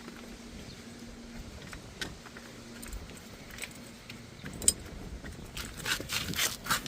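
Light metallic clicks and rattles from a car's scissor jack being handled and wound up by hand. The sounds are sparse at first and cluster in the last two seconds or so.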